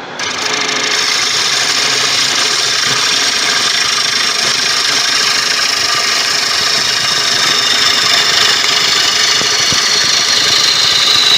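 A turning tool cutting into a large spinning tiger wood bowl blank on a lathe, a steady, loud shearing rasp as wood is hogged off the outside curve. The cut comes in about a quarter of a second in and runs on without a break.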